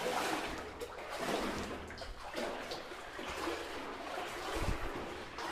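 Wading through water: water sloshing and splashing around the legs with each stride, swelling and fading about once a second.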